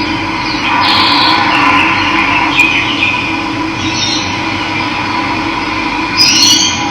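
Running water rushing steadily, with brief high bird chirps about a second in and again near the end.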